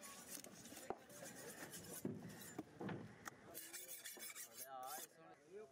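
A large knife sawing through a big fish's flesh and backbone, a rasping scrape broken by a few sharp knocks of the blade against the wooden chopping block. A voice is heard briefly near the end.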